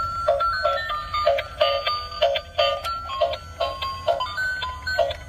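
Tinny electronic toy melody from a battery-powered transparent gear toy car: single beeping notes stepping up and down over a steady beat of about three a second.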